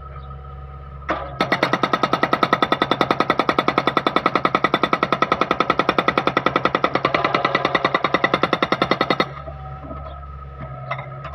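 Okada 650 hydraulic breaker on a Hitachi ZX48U-5A mini excavator hammering in a rapid, even rhythm of about ten blows a second, starting about a second in and stopping about nine seconds in. The excavator's diesel engine runs steadily underneath.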